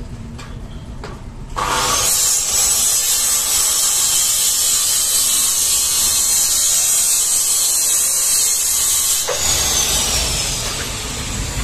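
A small motor, like a power tool's, starts about a second and a half in with a loud hiss and a high whine that climbs in pitch, then runs steadily. Near the end it cuts off and the whine winds down.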